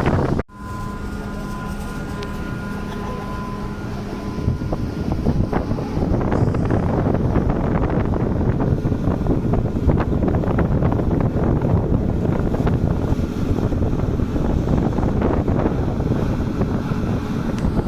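Rumble of a passenger ship under way, with wind buffeting the microphone. A steady hum runs for the first few seconds after a cut, then the wind noise grows louder.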